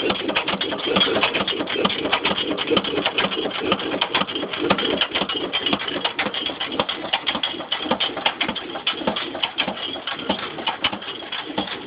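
8 hp Waterloo Boy single-cylinder stationary gas engine running, with a fast, steady clatter.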